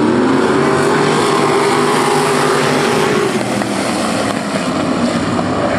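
A pack of traditional non-winged sprint cars racing on a dirt oval, their V8 engines running together. One engine note climbs in pitch over about the first second, holds, then drops away a little past three seconds in.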